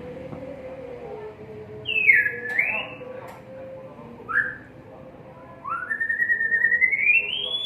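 White-rumped shama giving clear whistled notes that slide up and down: a dipping phrase, a short note, then a long rising whistle near the end.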